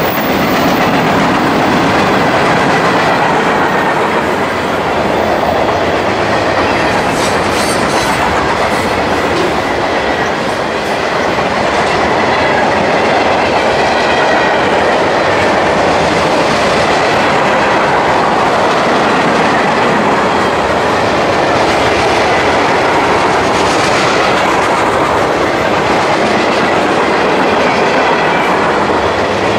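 Freight train cars rolling past close by, loud and steady, steel wheels running over the rails.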